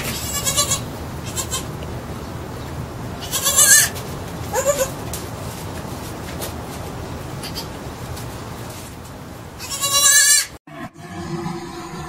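Young livestock bleating: several shrill, quavering bleats, the loudest about three and a half seconds in and a long one near the end, over a steady outdoor background that cuts off suddenly shortly before the end.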